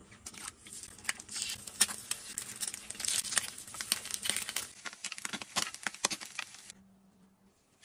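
Eggs and ham frying in oil in a four-compartment heart-shaped pan, sizzling and crackling with many sharp spatter pops. The sizzle cuts off shortly before the end.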